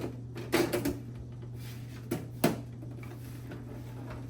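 A few sharp knocks and clunks from handling a desktop PC case, the loudest about half a second in and again around two and a half seconds in, over a steady low hum.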